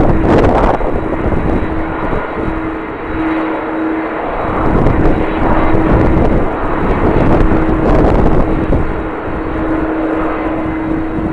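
Jet airliner engines running with a steady rushing noise and a constant hum, while gusts of strong wind buffet the microphone in uneven surges.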